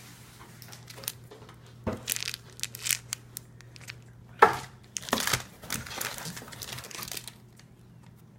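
Wrapping crinkling in irregular bursts as it is handled, loudest about four and a half seconds in.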